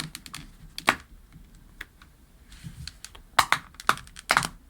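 Sharp plastic clicks and taps from a replacement earpad's plastic ring being pressed and snapped onto the clips of a Sennheiser PXC 550 ear cup, scattered at first and bunching together in the second half.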